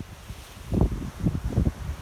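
Sea wind buffeting the microphone in irregular low gusts, heaviest in the second second, over a steady hiss of surf on the shore.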